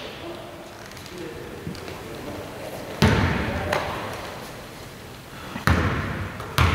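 A basketball bouncing on an indoor court: a few heavy thuds that echo through the hall, the first about three seconds in and two more close together near the end.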